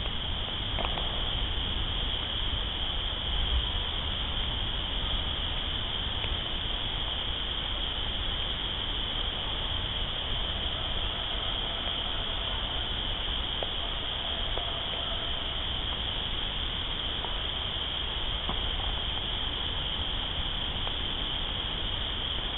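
Steady, high-pitched night chorus of calling animals over a low rumble.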